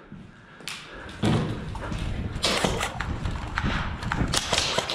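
Footsteps on a concrete corridor floor, with gear rustling. They pick up about a second in and come faster and busier toward the end.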